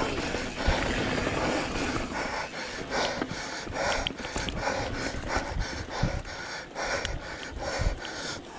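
Mountain biker breathing hard close to the microphone, about two breaths a second, over the rumble and knocks of the bike riding a bumpy dirt trail.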